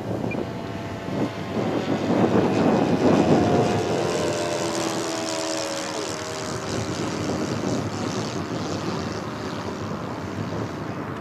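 Large-scale Top Flite Cessna 182 RC model flying past, its electric motor and propeller whirring. The sound is loudest a few seconds in, and its tones slide down in pitch as the plane passes.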